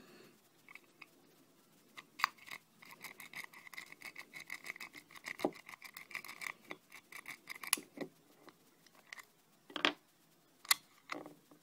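Blackspur disc padlock being worked by hand: a run of rapid metallic clicks with a ringing tone for a few seconds, then a few separate sharper clicks.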